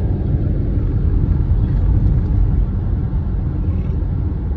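Steady low rumble of a car driving along the road: engine and tyre noise at cruising speed.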